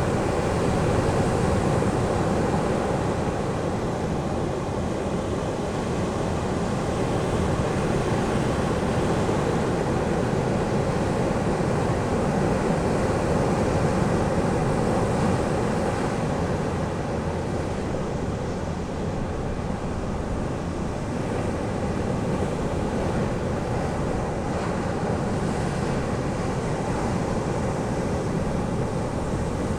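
Ocean surf on the beach: a steady, continuous wash of breaking waves that swells and eases slightly.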